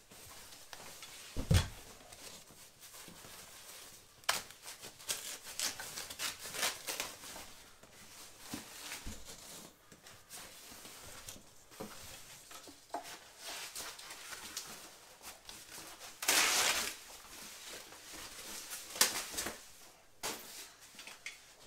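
Packing materials being handled as a heavy subwoofer is pulled from its box: its white wrapping sleeve rustling and crinkling, with foam and cardboard scraping and irregular small clicks. A soft thud comes near the start, and a longer burst of rustling or tearing about three-quarters of the way through.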